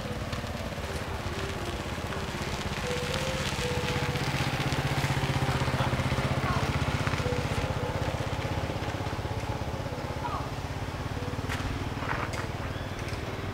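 A motor engine running steadily nearby, its low hum swelling in the middle and easing off again.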